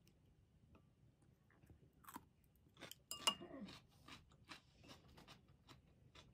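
Quiet, close crunching of pickled cucumber being chewed, a quick run of crisp crunches starting about two seconds in. Just after three seconds, chopsticks are set down on a ceramic bowl with a single sharp clink.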